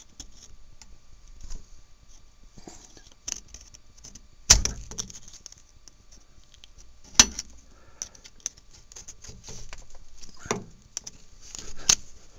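Small metallic clicks and scrapes of a hand tool bending over a cotter pin in a castellated nut, with two sharp metal knocks about four and a half and seven seconds in.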